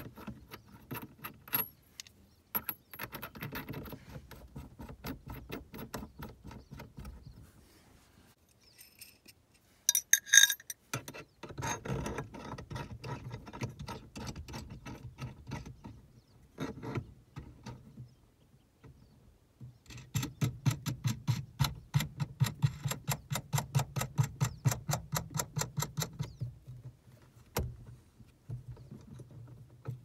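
Metal clinks and rattles from a screw-type lock plate compressor being fitted and turned down on a G-body steering column, with the ignition keys jangling. There is a sharp clatter about ten seconds in, and a run of even clicks, about four a second, for some six seconds near the end.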